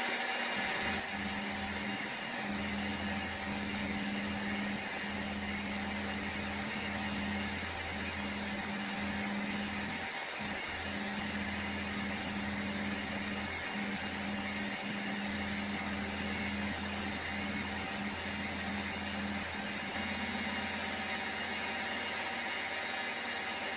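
Milling machine running steadily while cutting a small boss down to diameter. A low hum under the steady whir drops out briefly several times.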